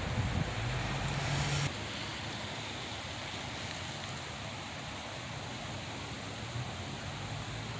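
Steady outdoor background noise, a soft even hiss. A low hum lies over it at the start and stops abruptly about a second and a half in.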